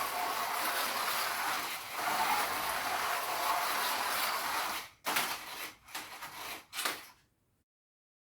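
Carrera Go slot cars running on plastic track with their small electric motors. They run steadily at first, then go in short stop-start spurts before stopping about seven seconds in.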